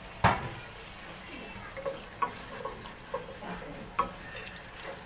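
Wooden spatula stirring sliced onions in oil in an aluminium pot, knocking and scraping against the metal, over a faint sizzle of the onions starting to fry. One sharp knock just after the start is the loudest sound, followed by several lighter clicks and scrapes.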